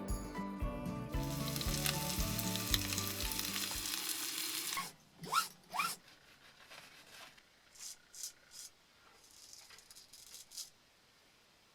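Background music with a steady beat and a strong hiss, ending about five seconds in; then it goes much quieter, with two short rising squeaks and a few faint bursts of hiss.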